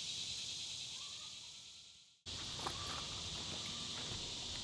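A steady, high-pitched chorus of insects chirping. It fades away about two seconds in and then cuts back in suddenly, with a few faint clicks afterwards.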